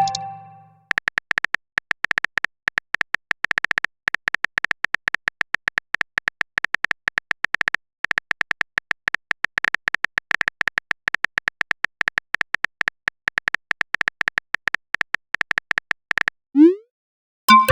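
Rapid, irregular typing clicks, a phone-keyboard sound effect, with short pauses about four and eight seconds in. Near the end they stop and give way to a short rising swoosh and a chime, a chat message notification sound.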